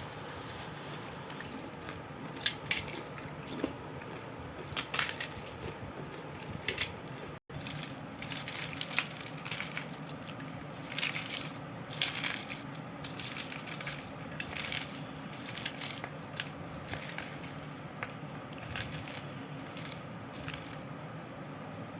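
Crisp golgappa puri shells crackling and crunching in repeated short bursts over a steady background hum, with a momentary cut-out about seven and a half seconds in.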